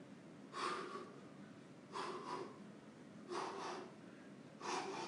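A man's sharp, forceful breaths out through nose and mouth as he throws punches while shadowboxing at full effort. Four short bursts a little over a second apart, some doubled.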